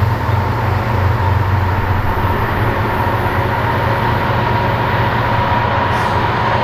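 Diesel locomotives of an approaching BNSF freight train running, heard as a steady low drone with a steady higher whine above it.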